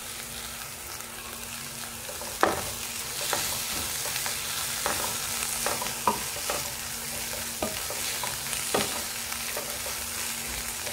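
A wooden spatula stirring and scraping a chicken masala in a non-stick frying pan over a steady sizzle of frying. Several sharp knocks of the spatula against the pan come at irregular intervals from about two and a half seconds in.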